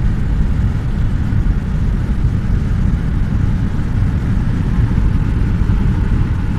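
Steady low rumble of a moving car heard from inside the cabin: tyre and wind noise from rolling along the road.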